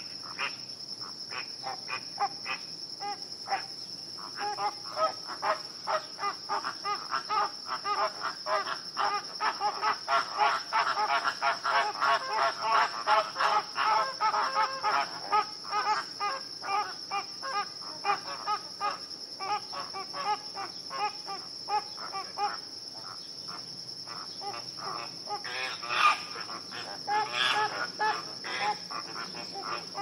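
A flock of flamingos calling: many short, goose-like honks overlapping, thickest in the middle and thinning out towards the end, over a steady high-pitched tone.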